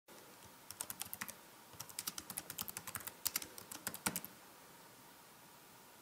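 Typing on a computer keyboard: a short run of key clicks about a second in, a brief pause, then a longer run of quick clicks lasting about two and a half seconds.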